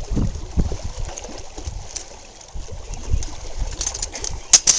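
Handling noise and wind buffeting on a handheld camera's microphone, with fabric rustling as it is moved against the body. A few sharp clicks come near the end.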